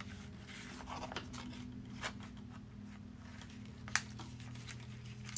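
Soft rustling of a magazine page being handled and shifted on a cutting mat, with one sharp tap about four seconds in.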